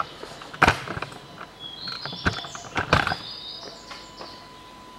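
A few sharp clicks or taps, with high wavering chirps in the middle; a faint steady tone sets in about three seconds in.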